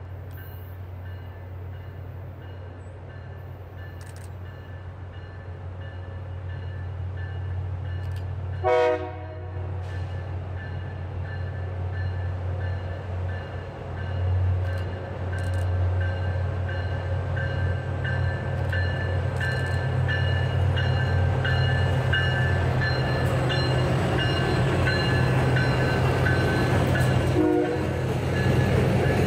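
Diesel switcher locomotive approaching and passing with a work train of gondolas and rail-loaded flatcars, its engine rumble building steadily as it nears. It gives one short horn blast about nine seconds in and a brief toot near the end, over a faint repeated ringing.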